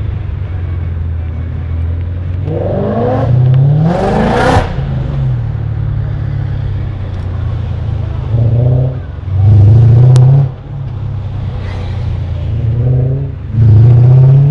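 BMW E39 M5 V8 engines with Eisenmann exhausts and Supersprint X-pipes, heard from inside a car: a steady low engine drone broken by several bursts of hard revving that rise in pitch, the loudest about ten seconds in and near the end.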